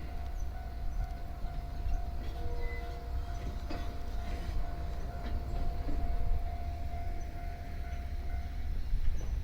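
A train rolling slowly: a switcher hauling an E231 series 800-number electric train set. There is a steady low rumble with occasional clacks from the wheels, and a steady high whine that stops near the end.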